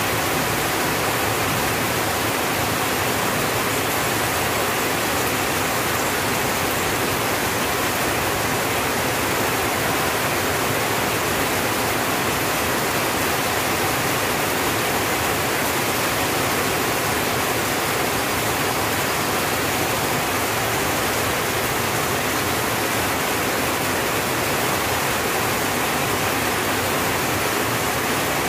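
Heavy rain falling steadily on a tin roof, a dense even hiss at a constant level.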